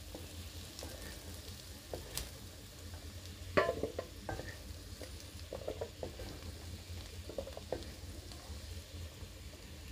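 Wooden spatula scraping and knocking against a metal kadhai as fried raw papaya cubes are pushed out onto a steel plate, over a faint sizzle of oil. Short scrapes and clacks come irregularly, the loudest about three and a half seconds in.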